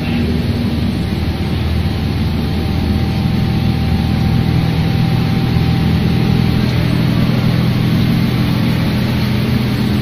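Conveyor-belt microwave salt drying machine running: a loud, steady machine drone with a low hum.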